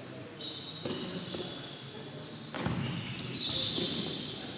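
Indoor futsal play echoing in a large hall: a ball kicked with a sharp knock about halfway through, and high squeaks from players' shoes on the court floor, loudest near the end.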